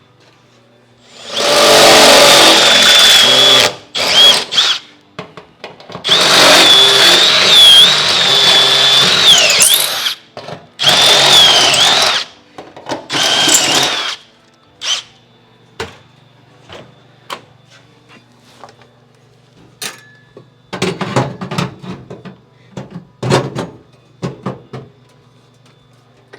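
Power drill reaming out bolt holes in the sheet-metal firewall, run in five bursts of a few seconds each, its high motor whine dipping as the bit bites. After that come light clicks and knocks.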